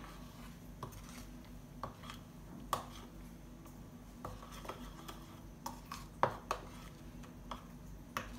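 A spoon stirring a spice-paste mix, knocking and scraping against the pot in sharp, irregular taps about once a second.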